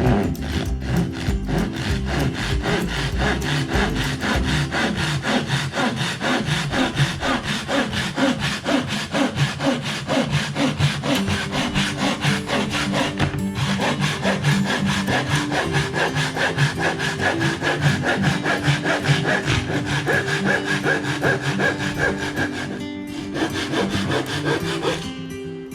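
Hand saw cutting through a piece of wood with steady, repeated back-and-forth strokes, pausing briefly twice.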